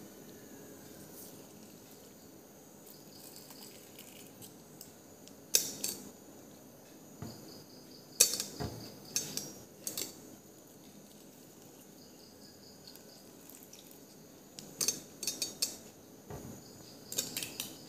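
Metal hand lemon squeezer clicking and clinking against a glass bowl as lemon juice is pressed into the spice mix: a few sharp clicks in the middle and a quick cluster of them near the end, over a quiet background.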